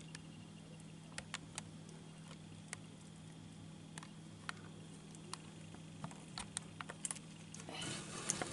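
Faint steady low hum with scattered light clicks, and a short rustle of handling noise from the camera being moved near the end.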